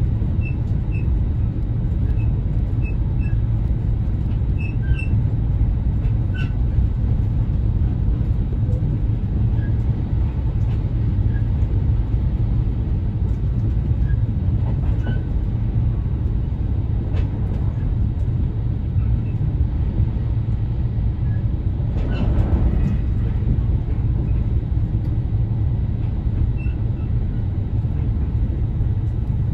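Inside the passenger car of the Relay Kamome limited express running at speed: a steady low rumble of wheels on track, with faint small ticks and rattles. A brief swell of rushing noise comes a little after twenty seconds in.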